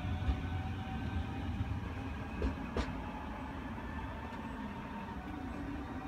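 Class 425 electric multiple unit running away from the platform: a steady low rumble with a faint electric hum that slowly fades, and two sharp clicks about halfway through.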